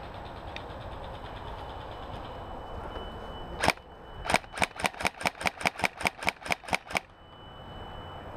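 Electric airsoft rifle firing: one sharp shot about three and a half seconds in, then a quick string of about fourteen shots at about five a second.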